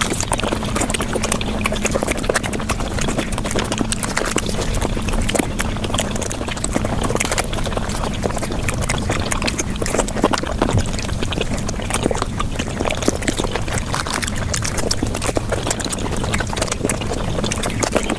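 Mukbang eating sounds of paratha and luchi flatbread being chewed, sped up five times: a dense, rapid, unbroken stream of wet mouth clicks and smacks.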